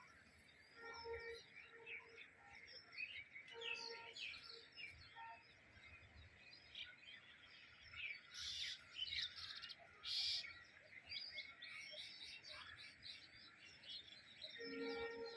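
Wild birds singing together: a busy chorus of short, high chirps and twitters, with a lower, steady call coming in a few times. Two brief hissing bursts sound in the middle.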